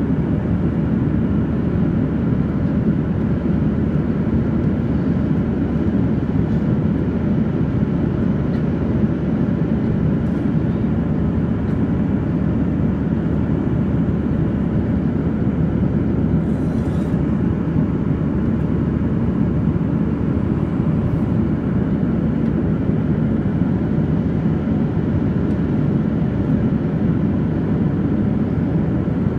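Steady in-flight cabin noise of a Boeing 737-800: its CFM56-7B engines and the airflow over the fuselage make an even, unbroken low rumble with a faint steady hum.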